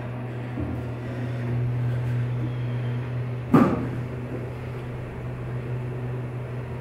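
Hydraulic elevator cab running up between floors, with a steady low hum of the machinery throughout. A single sharp knock comes about three and a half seconds in.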